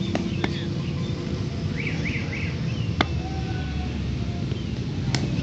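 Sharp knocks of a cricket ball on a bat in practice nets: two light ones about half a second apart, then a crisp one about three seconds in, the loudest, and another near the end. A steady low rumble runs underneath.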